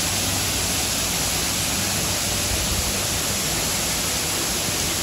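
Large artificial waterfall: a steady rush of falling water.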